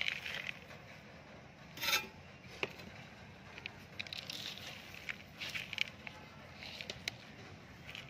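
Scattered short scraping and rustling sounds, with a louder scrape about two seconds in.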